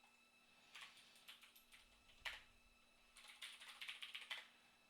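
Faint typing on a computer keyboard: a few separate keystrokes, then a quick run of keys near the end.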